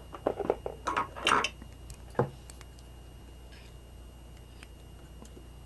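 Small handling sounds as a roll of PVC tape is picked up and pulled: a few light clicks and a short rustle in the first two seconds. After that only a faint low hum remains.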